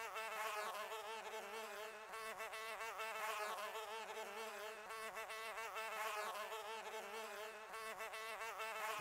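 Flies buzzing, several at once, their overlapping drone wavering up and down in pitch.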